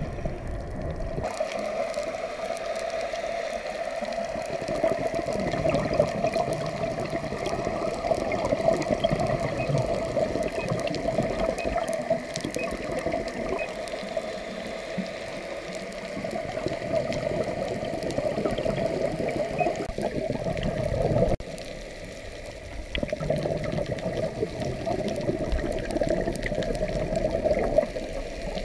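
Muffled underwater rushing and gurgling heard through a dive camera's housing, the sound of the diver's surroundings and bubbles. The sound shifts abruptly twice, about a second in and about two-thirds of the way through.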